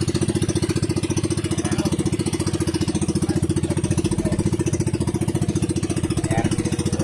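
Fishing boat's engine running steadily with a rapid, even chugging pulse while the boat is under way.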